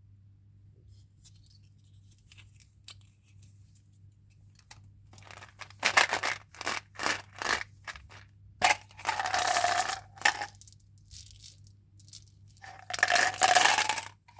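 Plastic candy packaging being handled and opened: a few faint ticks, then from about six seconds in a run of loud crinkles and rips. Two of the rips are drawn out for about a second each.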